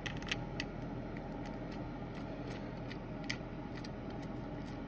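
Light metal clicks and taps as the water pump cover and its bolts are handled and fitted onto a Yamaha YZ80 clutch cover, a few irregular ticks over a steady low hum.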